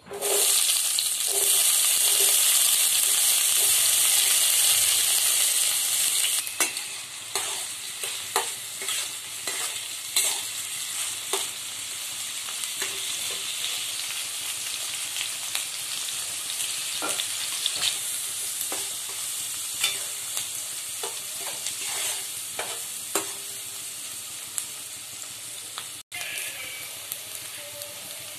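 Chopped onions sizzling in hot oil in a wok, loud at first as they hit the oil and settling to a steadier, lower frying sizzle after about six seconds. A metal spatula stirs and scrapes them against the pan, giving scattered clicks, and the sound cuts out for an instant near the end.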